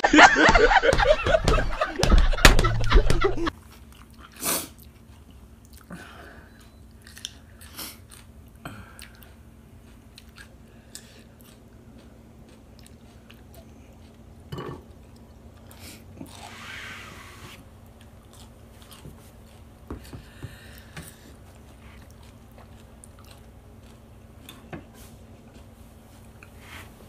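About three and a half seconds of loud laughter, then quiet chewing and crunching of raw jalapeño peppers and noodles, with scattered soft clicks and a faint steady hum underneath.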